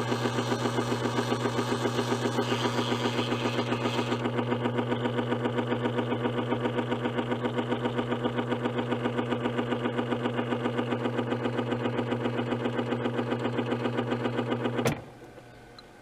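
Refrigerator water inlet valve buzzing with a steady low hum and fast, even pulsing as it fills the ice maker tray with water, then shutting off with a click about 15 seconds in.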